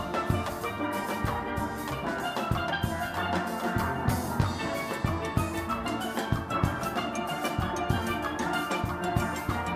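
Background steelpan band music, ringing pitched pan notes over drums keeping a steady beat.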